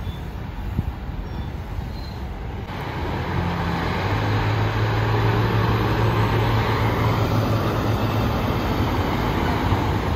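Diesel engines of semi-trucks running as they pull away and roll past at low speed, with tyre and road noise. A low engine drone builds from about four seconds in and is loudest near the end as a truck passes close.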